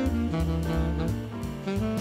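Instrumental background music in a jazz style, with a bass line stepping from note to note and regular drum hits.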